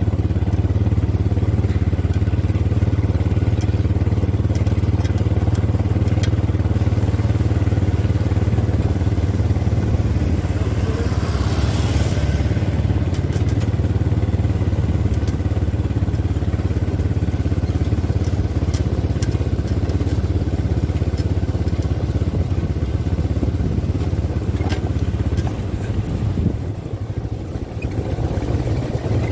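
ATV quad bike engines running steadily at low cruising speed, a constant low engine hum. A brief rush of noise rises and fades about twelve seconds in, and the engine sound wavers near the end.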